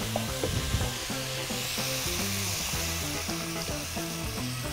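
Diced celeriac and quince sizzling in olive oil in a pot over high heat, under soft background music. About a second and a half in, the sizzle grows louder for a few seconds as freshly squeezed orange juice is poured in.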